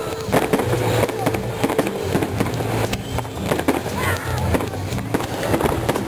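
Fireworks going off: a dense, continuous run of sharp cracks and bangs from bursting aerial shells, several a second.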